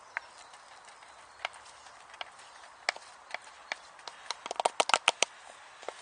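Wood fire crackling in a tin-can hobo stove: scattered sharp pops that come thick and fast for about a second near the end.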